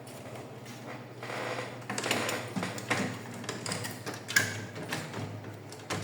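Plastic printer parts being handled and fitted during reassembly of an HP LaserJet M1132: scattered clicks, knocks and scraping as pieces are set into place.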